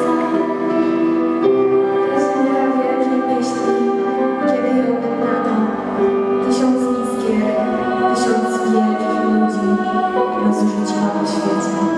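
A youth vocal ensemble singing through microphones, with long held notes.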